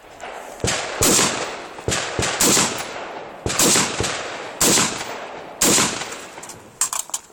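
Rifle shots fired in quick succession: five loud reports about a second apart, each trailing off, with quieter sharp shots from other rifles in between and a quick cluster near the end.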